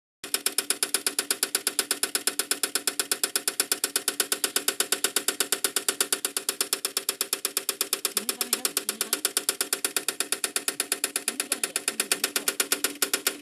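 Swaraj tractor running with a rapid, even clicking of about seven strikes a second over a steady hum, a noise the owner puts down to a hydraulic problem.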